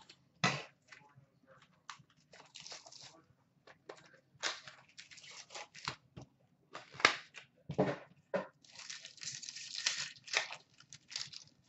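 A trading-card box and its packs being handled: scattered cardboard taps and crinkles, then a longer rustling tear near the end as a card pack's wrapper is ripped open.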